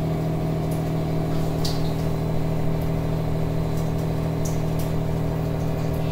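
Steady electric motor hum from a running appliance, one low tone with several overtones, and a couple of faint ticks.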